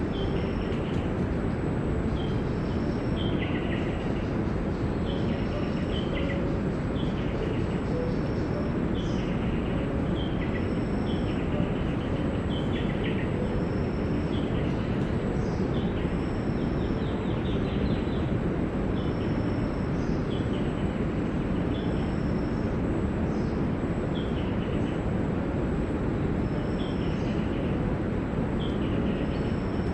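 Rainforest ambience: a steady low rushing background with short, descending bird calls repeating every second or so, and a thin, steady high-pitched tone over it.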